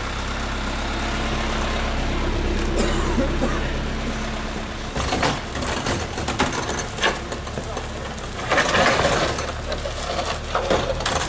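GAZ-66 truck engine idling steadily, with a run of sharp knocks and clattering thuds from about halfway through.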